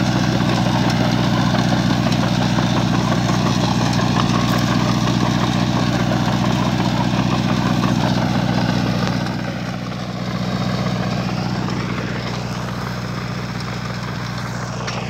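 Tractor engine running steadily as it pulls a tine cultivator through the soil. It gets a little quieter about nine seconds in.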